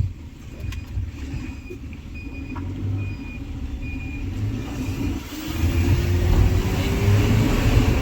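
Isuzu Trooper's 4JX1 four-cylinder turbo-diesel running, with faint short beeps repeating in the first half; about five seconds in it gets louder and a slowly rising whine comes in as the engine speeds up.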